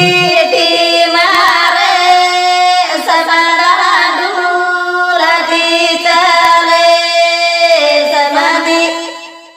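A woman singing a Banjara vaya geet (wedding song) in long, drawn-out wavering notes; the voice fades away near the end.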